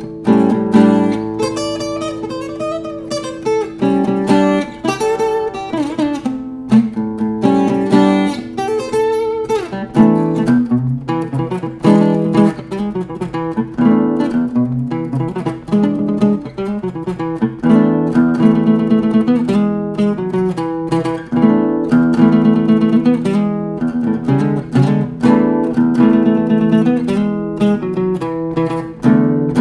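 Solo acoustic guitar playing an instrumental piece: plucked melody notes over ringing chords and bass notes, with no singing.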